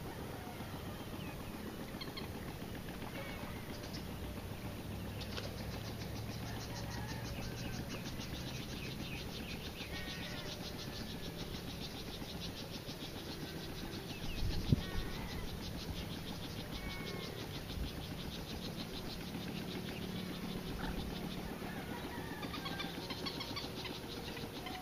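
Marsh ambience: birds calling in short chirps over a fast, high, evenly pulsing trill, with a faint low steady hum underneath. One sharp thump about halfway through.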